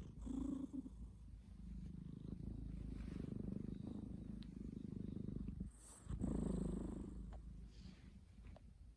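Pet cat snoring in low, rumbling breaths: a short one at the start, a long drawn-out one, then a louder one about six seconds in, fading after.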